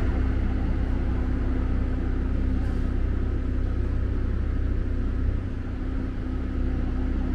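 Steady low rumble of city street traffic with a constant hum, easing briefly about five and a half seconds in.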